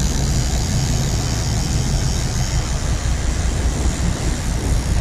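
Charter sportfishing boat underway: a steady low engine rumble under an even hiss of wind and water.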